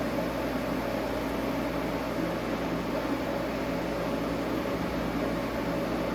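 A steady machine hum with an even hiss, like a fan or air conditioner running, holding level throughout.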